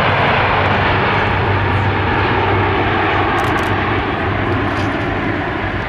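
Engine roar of a large Airbus aircraft in its flying display, steady, with a low hum underneath, easing off slightly near the end.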